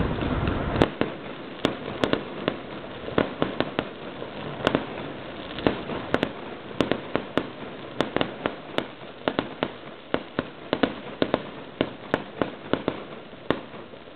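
Fireworks going off: a rushing noise for about the first second, then a long, irregular string of sharp pops and bangs, two or three a second, growing fainter near the end.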